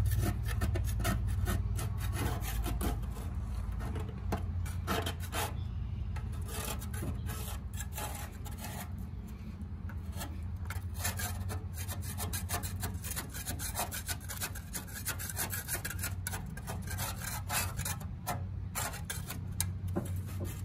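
Grass Buster deck scraper scraping caked grass clippings off the underside of a riding mower deck around a blade spindle, in a long run of quick, irregular strokes.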